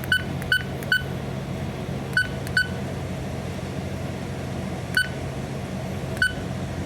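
Short, identical key-press beeps from a bridge navigational watch alarm system (BNWAS) control panel as its buttons are pressed to step through the settings menu: three in quick succession, two more about two seconds in, then single beeps about five and six seconds in, over a steady low hum.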